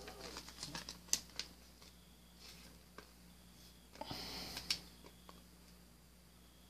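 Glossy chrome baseball cards handled between the fingers: faint scattered clicks and taps, with a brief rustle of cards sliding against each other about four seconds in.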